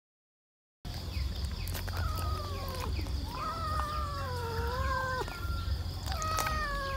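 Domestic cat giving long, drawn-out warning yowls, several in a row, each sliding slowly down in pitch. It is the threatening yowl of an angry cat facing a dog at close quarters. The yowls begin after about a second of silence.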